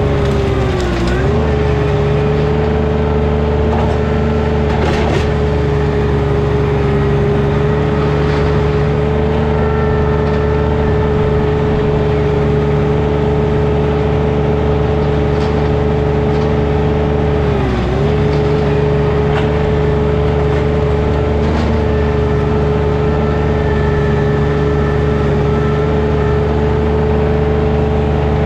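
Engine of a compact land-clearing machine running steadily at high speed, its pitch dipping briefly twice, about a second in and again near the middle.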